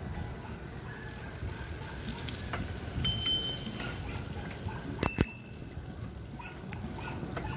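Bicycle bell rung twice: a short ringing ding about three seconds in and a louder, sharper ding about five seconds in. A steady low rumble of riding noise runs underneath.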